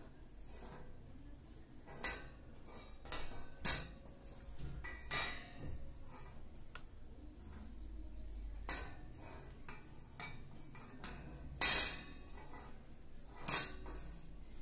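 Black steel wire shelf rack being handled and turned over, its metal rods and frame clinking and knocking. Scattered separate knocks, the two loudest near the end.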